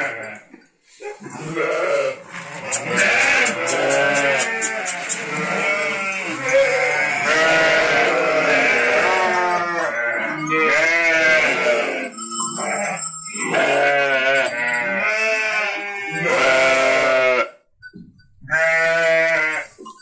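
Sönmez sheep and lambs bleating at feeding time, many loud overlapping calls one after another, with a brief lull near the end.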